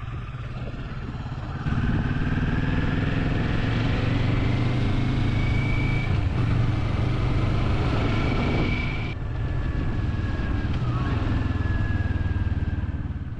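Motorcycle engine running under way with wind rushing over the microphone. It gets louder about two seconds in, the engine note climbs, then steps down about nine seconds in, and the sound fades near the end.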